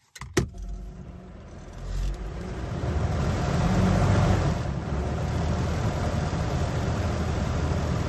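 QuietCool whole-house attic fan started on low speed from its remote: two sharp clicks, then about two seconds in the fan spins up and settles into a steady rush of air over a low hum, not very loud.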